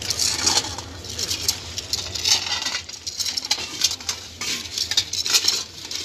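Irregular crunching and clinking of stones, like feet and tools working in railway track ballast, close to the microphone.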